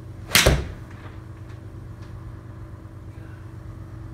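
A golf iron shot hit off a mat in an indoor simulator: one sharp crack of club on ball, followed at once by a low thud as the ball hits the impact screen. A steady low hum runs underneath.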